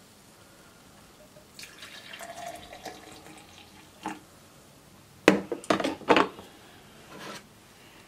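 Hot coffee pouring from a glass coffee-maker carafe into a mug for about a second and a half. A few sharp clunks follow about five seconds in, the loudest sounds, as the carafe is put back in the machine.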